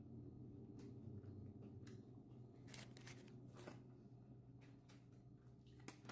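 Faint chewing and biting on corn on the cob, soft short clicks about once a second, over a low steady hum.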